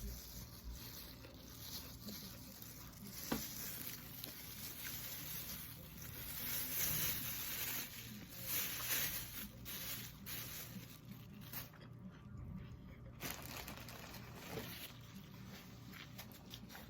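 Quiet eating sounds: chewing with scattered light clicks, and a stretch of crinkly rustling in the middle.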